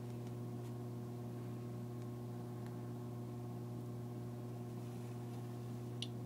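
Steady low electrical hum. Over it, a Geiger counter gives a few faint clicks as it counts, the clearest a short high chirp near the end.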